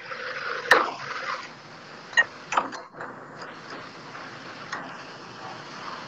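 Metal spoons clinking and tapping against a steel frying pan and bowl while besan batter is dropped into oil. There are a few sharp clinks: the loudest about a second in, a pair around two and a half seconds, and a lighter one near the end, over a faint steady hiss.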